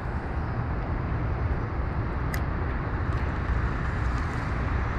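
Steady outdoor background noise, a low rumble and hiss with no distinct events, and a single short sharp click about two and a half seconds in.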